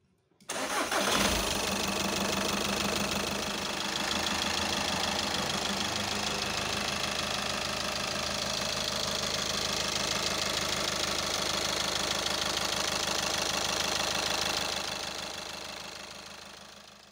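Seat Leon's freshly rebuilt 2.0 TDI (EA189) four-cylinder common-rail diesel engine running on its test run, with the typical diesel clatter. It comes in about half a second in, briefly louder, then settles to a steady idle and fades out near the end.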